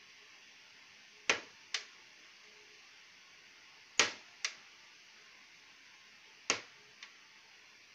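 Sharp clicks in pairs, a loud click followed about half a second later by a softer one, repeating about every two and a half seconds over a faint steady hiss.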